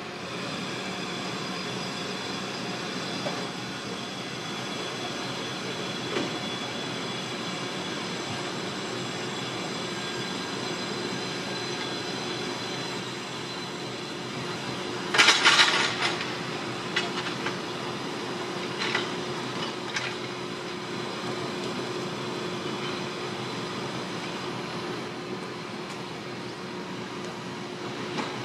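Engine running steadily, a hum with several fixed tones. About halfway comes a loud clatter lasting about a second, followed by a few lighter knocks.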